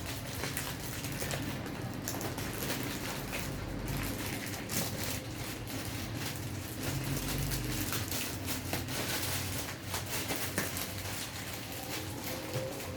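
Packaging being handled and opened: continuous rustling and crinkling with small irregular clicks and taps.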